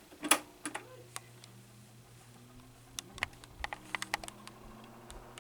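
Tatung 12-inch oscillating table fan switched on to low speed: a sharp click of the speed switch, then the motor starts with a quiet steady hum and a faint tone that rises as it spins up. A scattered run of light clicks follows about three to four seconds in.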